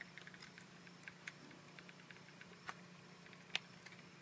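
Faint scattered clicks and taps of a Dye DM14 paintball marker being handled, small parts of its grip frame knocking lightly, with a sharper click about two and a half seconds in and the loudest one a little past three and a half seconds in.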